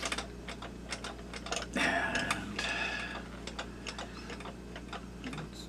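Small plastic figure being wiggled back and forth in its glued mounting hole: irregular light clicks and ticks, with a short creak about two seconds in, as the hardened glue gives way.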